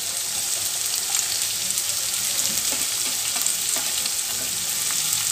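Shredded cabbage, carrot and chopped beans frying in hot oil in a pan: a steady sizzle with scattered faint crackles as the vegetables go in.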